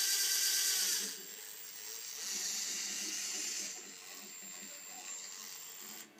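Ryobi cordless drill/driver motor run twice with the chuck spinning free: a burst of about a second that winds down in pitch as the trigger is let go, then a second run of about a second and a half.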